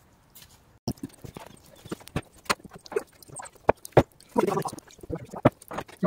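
Irregular sharp knocks and clacks of wooden boards and slab offcuts being handled and knocked together, starting about a second in.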